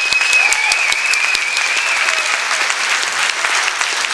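Large audience applauding with dense, steady clapping after a stage performance. A high held tone sounds over the clapping for the first couple of seconds.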